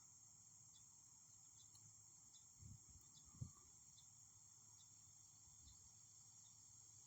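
Near silence outdoors: a faint, steady high-pitched trill of crickets, with two soft low thumps about three seconds in.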